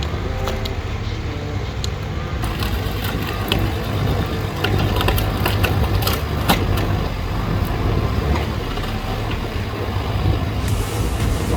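Heavy forestry machinery running, a steady diesel engine rumble with irregular clattering knocks and cracks.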